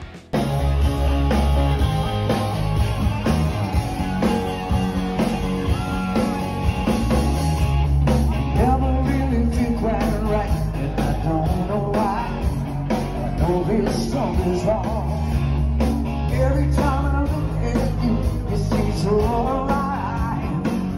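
Live rock band playing electric guitars, bass and drums with a singer, recorded on a phone from the audience; the music cuts in suddenly just after the start.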